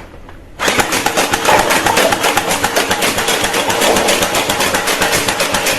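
Toy gun firing on automatic: a fast, even mechanical rattle of about a dozen clicks a second, starting about half a second in.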